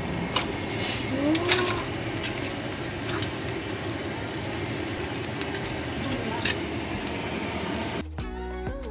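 Kitchen and table sounds at a home meal: a steady hiss with a few sharp clinks scattered through it and a brief faint voice. Music starts abruptly near the end.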